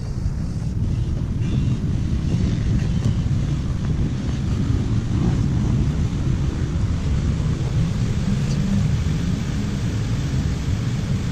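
Wind buffeting the microphone: a steady low rumble with no tones in it.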